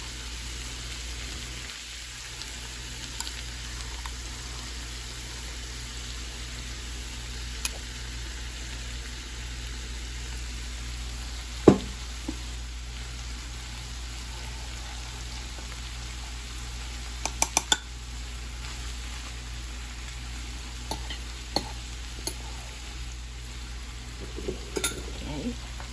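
Ground beef with diced onion and serrano frying in a pan, a steady sizzle, with a utensil stirring, scraping and now and then tapping against the pan. There is a sharp knock about twelve seconds in and a quick run of clicks around seventeen seconds.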